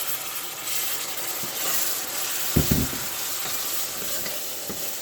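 Water just poured into curry powder frying in hot oil, sizzling and hissing steadily in the pot. A couple of short low knocks come about two and a half seconds in.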